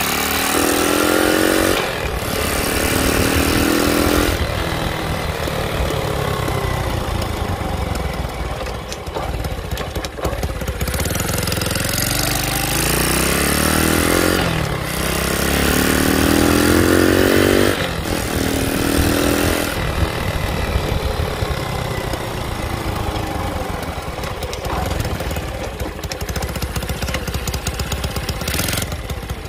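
A Piranha 140cc single-cylinder four-stroke engine in a Honda CT90 pulling away through its semi-automatic gears. The engine note rises and drops back at each upshift, twice near the start and three times in quick succession around the middle. Between and after these climbs it runs at a steadier, lower note.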